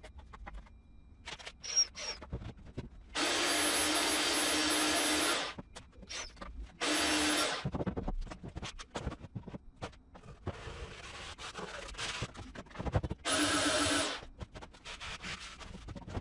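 A power tool running in three short bursts, each starting and stopping abruptly at a steady pitch: two a couple of seconds long and a shorter one in between. Light knocks and scrapes of wood being handled come between the bursts.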